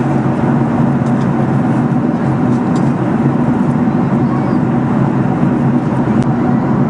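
Steady cabin noise inside a jet airliner in flight: a constant rush of engine and airflow noise with a deep hum underneath.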